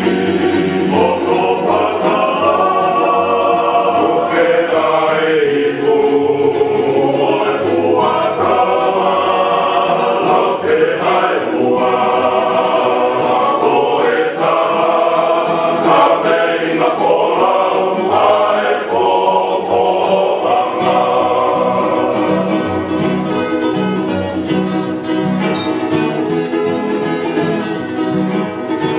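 Music: a group of voices singing a song in harmony over strummed string accompaniment, the strumming coming forward near the end.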